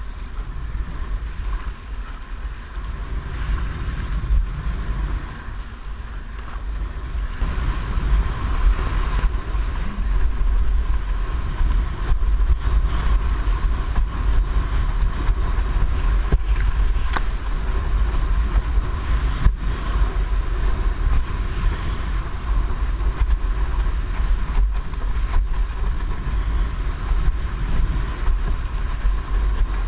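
Strong wind buffeting the microphone over water rushing and splashing under a windsurf board sailing fast through chop; the rush gets louder about seven seconds in and stays up.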